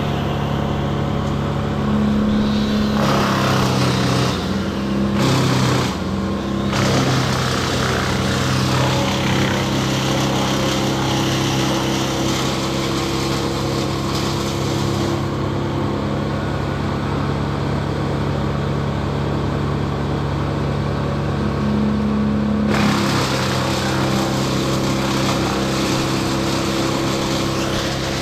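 Engine running steadily at a constant speed, with a rushing noise over it that fades out for several seconds in the middle.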